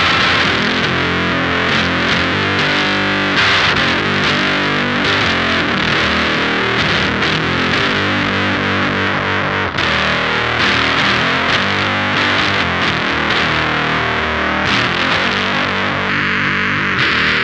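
Electric guitar played through the Screws octave fuzz pedal, thick and heavily distorted, with the tone toggle in its lower position for the most bass, a full-frequency boost. The sound is continuous, with a brief dip about ten seconds in.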